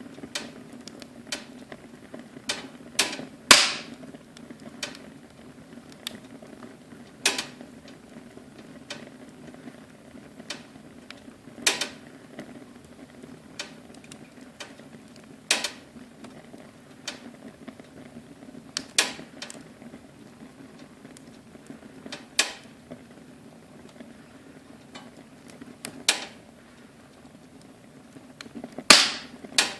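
Wood fire in a fireplace crackling, with sharp irregular pops every second or two over a low steady rumble of the flames. The loudest pops come about three and a half seconds in and near the end.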